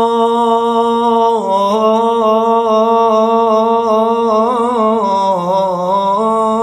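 A man singing an Arabic lament unaccompanied, holding one long note. About a second and a half in, it steps down slightly. Near the middle it breaks into a quick wavering ornament, sinks lower, and climbs again near the end.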